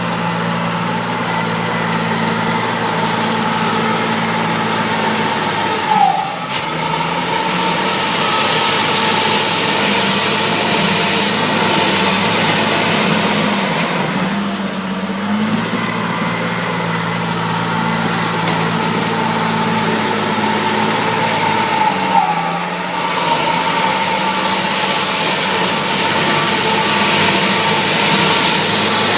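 Caterpillar 950F wheel loader's six-cylinder diesel engine running steadily, its note shifting briefly about six seconds in and again about twenty-two seconds in, with a hiss that swells for a few seconds at a time.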